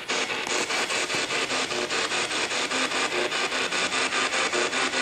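Ghost box (spirit box) radio sweeping through stations: loud hissing static chopped into rapid, even pulses several times a second, with brief snatches of broadcast tones breaking through.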